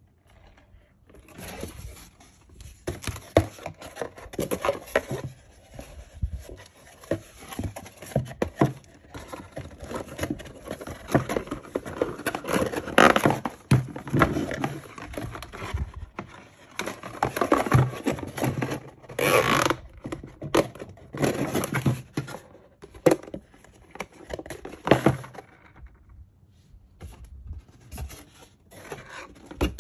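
A plastic action figure being handled and fitted into its cardboard box: irregular scraping, rubbing and knocking of plastic on cardboard, quieter near the end.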